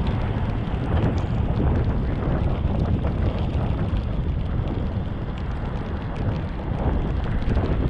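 Wind rushing over the microphone of a bicycle ride in the rain, a steady low rumble with scattered small ticks throughout.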